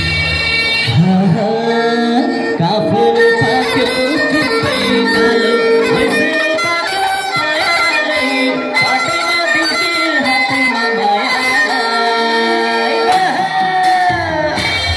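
Nepali panche baja music: a loud reed-pipe melody held in long notes over drumming.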